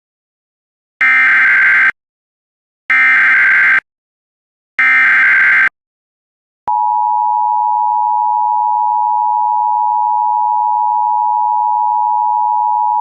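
Emergency Alert System header: three short bursts of warbling SAME digital data, then the steady two-tone EAS attention signal starts about seven seconds in. Together they announce the start of a new alert.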